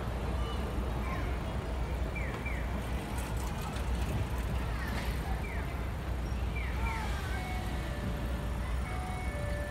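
Busy city street ambience at a tram stop: a steady low rumble of traffic, with short, high, falling chirps scattered throughout. A few steady high tones join in near the end.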